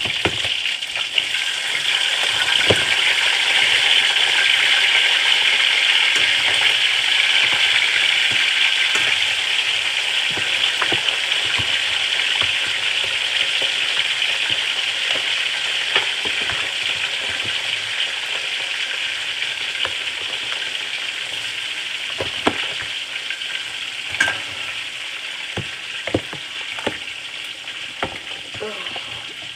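Parboiled chicken and fish sizzling as they fry in hot oil in a pan: a steady hissing sizzle that slowly dies down, with a few short sharp clicks scattered through it.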